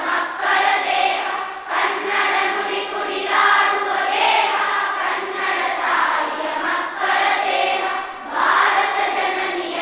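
A large group of schoolchildren singing together, the sung line broken by short pauses between phrases.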